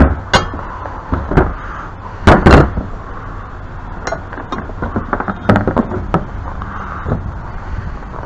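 Metal pipe fittings and tools being handled, clinking and knocking together in a series of sharp strikes. The loudest come in a pair about two and a half seconds in, with a quicker run of lighter clinks around five to six seconds.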